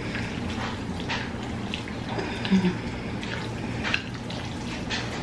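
Chopsticks stirring and lifting saucy black bean noodles in a bowl: a run of wet, sticky squishes and light clicks, over a low steady hum.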